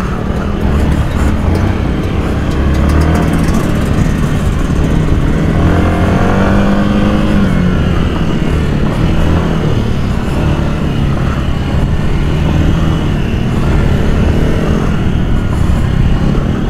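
Yamaha dirt bike engine running under way on a dirt track, heard close up from the rider's own bike. The revs climb about six seconds in and drop back a second or so later.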